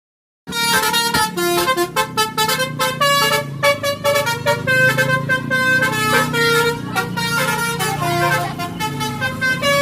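Basuri telolet, a multi-tone musical bus horn, playing a rapid melody of short, shifting horn notes that starts about half a second in.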